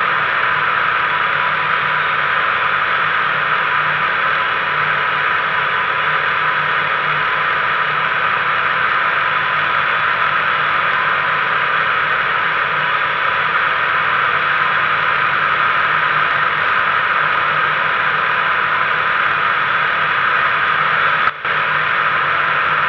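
Steady wind rush over a wing-mounted camera on a Mainair flex-wing microlight trike in flight, with the trike's two-stroke Rotax engine droning underneath. The sound cuts out for a moment near the end.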